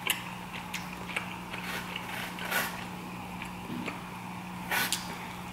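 Close-up chewing and mouth sounds of someone eating, with scattered light clicks as wooden chopsticks pick food from a foam takeout box, over a steady low hum.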